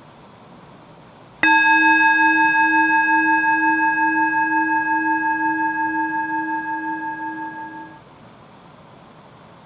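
A bell-like metal bowl struck once, ringing with several clear overtones and slowly fading, then cutting off abruptly after about six and a half seconds; typical of an edited-in 'chiin' bell sound effect.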